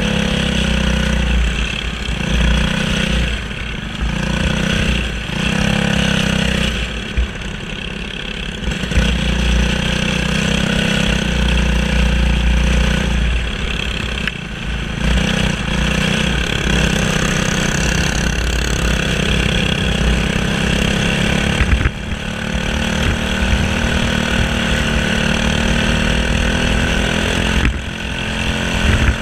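Single-cylinder Briggs & Stratton LO206 four-stroke kart engine running at racing speed, heard from the driver's seat, its note rising and falling as the throttle comes off and back on through the turns of the oval.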